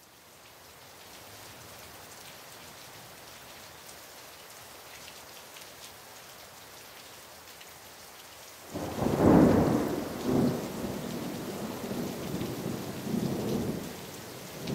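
Steady rain falling, fading in at the start. About nine seconds in, a loud thunderclap breaks and rolls on in several rumbling swells for about five seconds.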